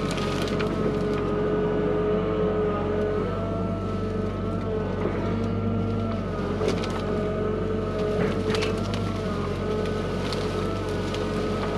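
Hyundai HX85A excavator running under work, its engine and hydraulics giving a steady drone whose pitch shifts slightly as it loads, with scattered sharp cracks and knocks.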